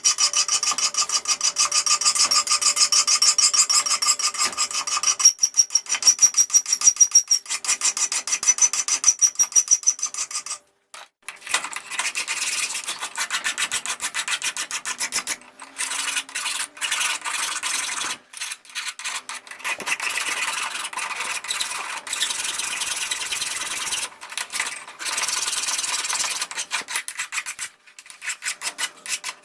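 Steel being worked with a hand file or rasp: quick, even back-and-forth strokes, about two a second, with a few short pauses. During the first part the steel rings faintly under the file.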